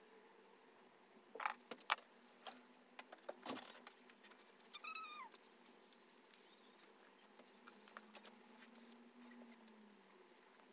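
A few sharp clicks, the loudest about a second and a half in, then a short cat meow that falls in pitch about five seconds in.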